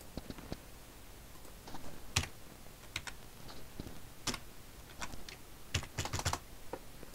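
Computer keyboard keys pressed in scattered single taps and short runs, with a quicker cluster near the end, as figures are entered into a spreadsheet.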